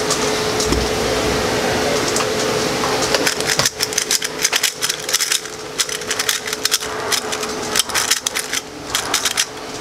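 Metallic-finish Cyclone Boys 3x3 speed cube being turned fast in a timed solve: a rapid, irregular run of clicking and clacking from its turning layers, starting about three and a half seconds in. Before that there is only a steady hiss with a faint hum.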